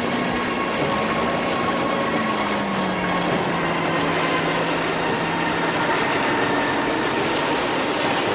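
A powerboat's engines running hard at speed, with water rushing and spraying off the hull. The engine note rises and falls a little in the first few seconds.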